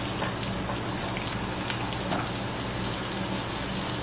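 Diced onion and red bell pepper sizzling as they go into hot olive oil in a cast iron skillet: a dense, steady crackle of frying with many small spits that starts suddenly as the vegetables hit the oil.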